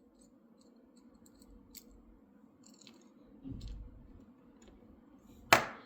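Small metallic clicks and scrapes of a screwdriver taking the back plate off a dimple lock, with a dull bump about halfway through and one sharp, loud clack near the end.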